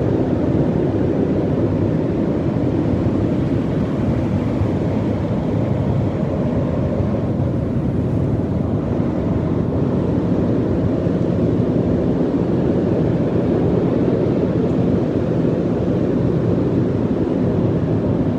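Steady low rumble on the deck of a moving ship: wind blowing across the microphone over the ship's engine and the sea, without a break.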